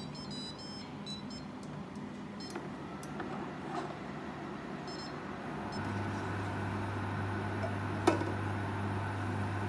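Induction cooktop's touch controls beeping in short high electronic tones several times. About six seconds in, the hob switches on with a steady low hum and a faint whine. A single sharp clink of a ceramic saucepan on the glass top comes near the end.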